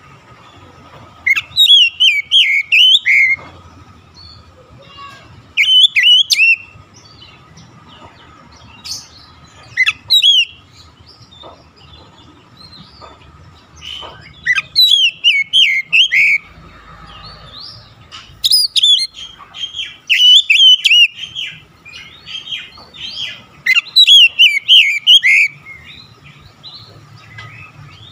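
Male Oriental magpie-robin (kacer) singing. It gives loud bursts of rapid, varied whistled phrases, each lasting one to three seconds, with a few seconds of quiet between them.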